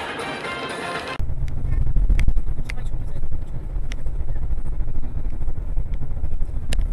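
About a second of music, then an abrupt cut to the steady low rumble of a car driving, engine and road noise as picked up by a dashcam, with a few faint ticks.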